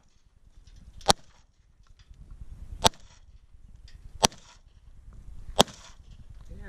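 Four single shots from an FMK 9C1 9mm pistol, fired one at a time about a second and a half apart.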